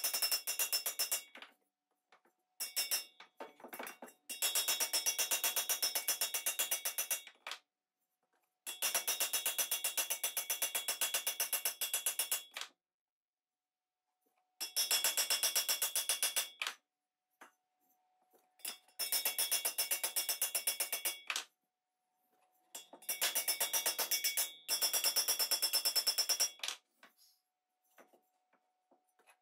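Small hammer tapping dents out of a thin metal lamp body, rapid light blows with a metallic ring. They come in runs of a few seconds broken by short pauses as the body is turned.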